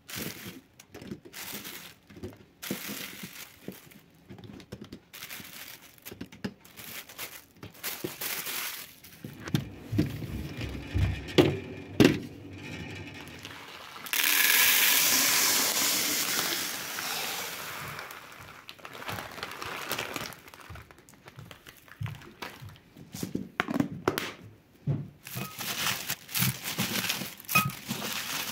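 Plastic grocery packaging crinkling and knocking as packets are handled and set into a plastic basket, with a few heavier knocks. About halfway through, dry buckwheat grains pour from a plastic bag into a container as a sudden steady hiss that fades over a few seconds, followed by more scattered rustling and clicks.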